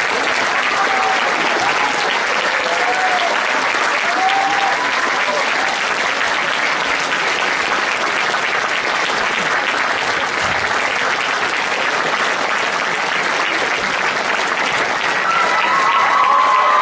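Large audience applauding steadily at a curtain call, with a few short calls from the crowd over the clapping. Near the end the applause swells a little and held whistles or cheers rise above it.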